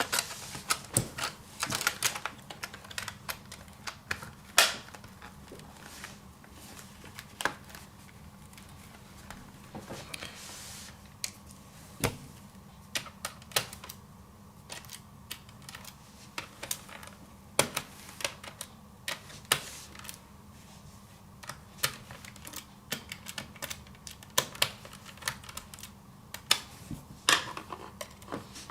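Irregular small clicks and taps of plastic and metal laptop parts being handled, as a hard drive caddy in the optical drive bay is fitted and its cover and screws fastened. A faint steady low hum runs underneath.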